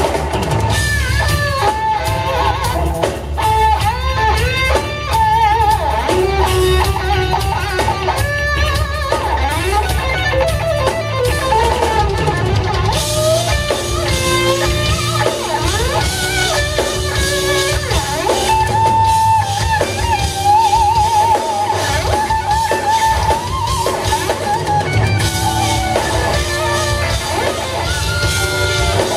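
Instrumental rock band playing live: a lead electric guitar plays melodic lines with wide vibrato over bass and drums. About halfway through the cymbals come in brighter and busier.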